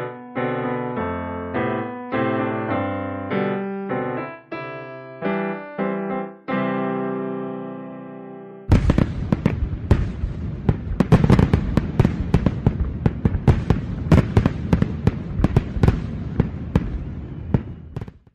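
Piano music, a slow melody that ends on a long held chord. About nine seconds in, fireworks burst in suddenly, with rapid bangs and crackling that thin out and fade near the end.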